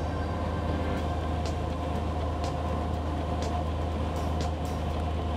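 Single-engine propeller plane's engine and propeller droning steadily, heard inside the cabin on approach to a runway.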